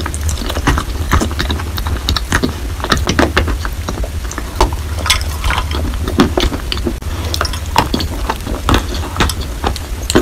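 Close-miked chewing of school chalk coated in wet paste: a dense run of crunches and small wet mouth clicks at uneven spacing, over a steady low hum.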